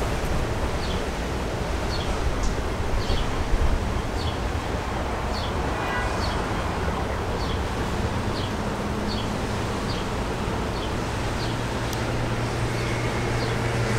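Steady rumble of an R160 subway train running away along the elevated track. A faint short high chirp repeats about every half second above it.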